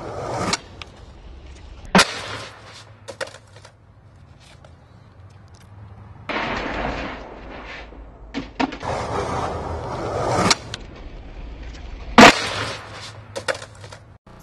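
Skateboard on concrete: wheels rolling with a rough rumble, and the sharp cracks and clatter of the board and a rider slamming down on concrete in a fall down a big stair set. The loudest crack comes near the end.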